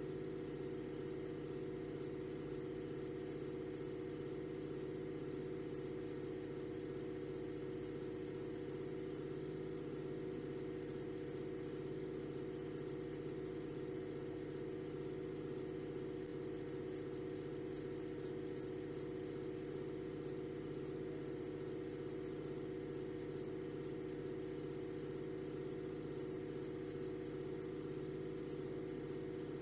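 A steady, unchanging hum with several held tones, with no breaks or changes.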